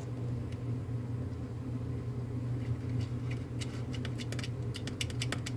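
A steady low hum throughout, and from about three and a half seconds in a quick run of small metallic clicks as a nut is spun by hand onto a screw.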